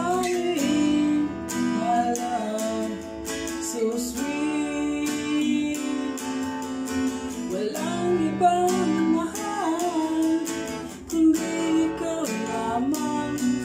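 Acoustic guitar strumming chords in an instrumental break between sung lines, with a wavering melody line over the chords.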